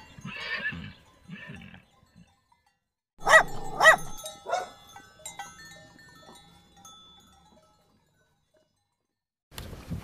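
A dog barking: two loud barks in quick succession about three seconds in, followed by a few fainter ones. Before that, faint sounds from a horse in the first couple of seconds.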